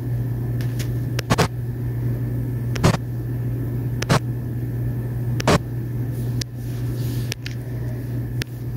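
Steady low hum of a Hitachi excavator's engine running at a demolition site. Four short sharp clicks cut across it, about one every second and a half.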